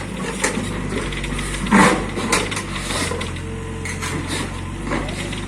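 Diesel engine of heavy earthmoving machinery running steadily, with irregular clunks and clatter over it, the loudest about two seconds in.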